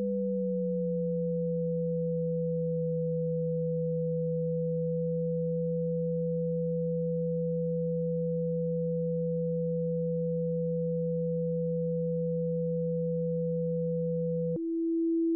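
Pure sine tones from a Pure Data oscillator patch, the audio signal that draws shapes on an oscilloscope: a steady higher tone over a lower tone that slides down slightly in the first second and then holds. Near the end a click cuts both off, and a single steady middle tone takes over as the oscillator frequencies are changed.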